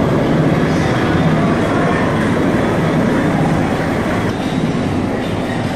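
U.S. Coast Guard rescue helicopter hovering over the ship: a loud, steady rotor and engine noise with a deep rumble.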